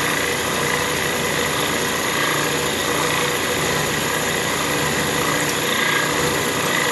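Milling machine cutting a slot in hot-rolled steel plate with a cutter about an inch across, fed steadily along the X axis. It makes a steady machining hum with faint constant whining tones.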